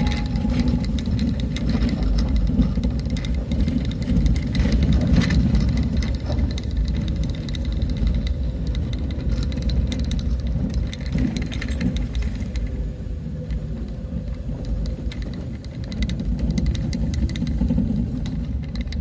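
A road vehicle travelling over a rough road: a steady low rumble of engine and road noise, with scattered rattles.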